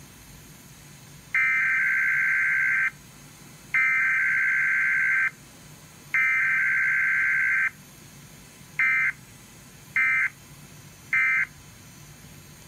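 Emergency Alert System SAME digital data bursts of a Required Weekly Test. Three long, buzzy header bursts of about a second and a half each are followed by three short end-of-message bursts, each about a second apart, with no attention tone or voice message between them.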